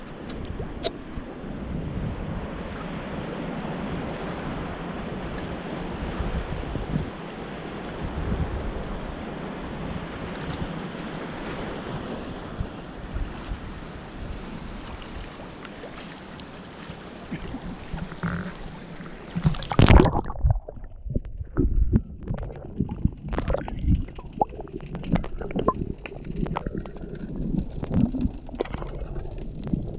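Steady rushing wind and water noise on a kayak-mounted action camera's microphone. About two-thirds of the way through, the sound suddenly turns muffled as the camera goes underwater, becoming irregular low gurgles and knocks of moving water.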